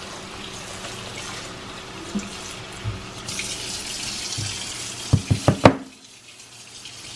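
Water running from a kitchen tap as something is rinsed under it, the flow growing stronger partway through. About five seconds in come four quick knocks, and just after them the running water stops.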